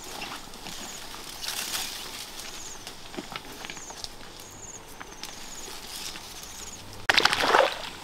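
Footsteps on loose stones and rustling through tall grass, with short high trills repeating about every second. Near the end comes a loud splash of water lasting about half a second.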